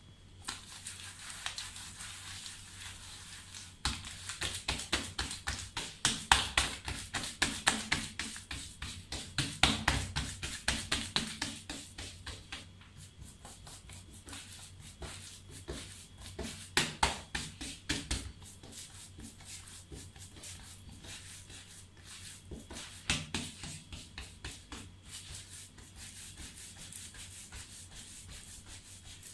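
Hands patting and rubbing a thin sheet of dough spread with poppy seed paste on a marble counter: a quick, uneven run of soft slaps and rubs, several a second, louder in stretches, then the sheet being rolled up near the end.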